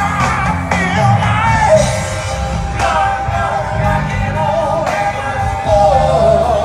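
Amplified rock music with a lead singer, coming from an outdoor stage's sound system.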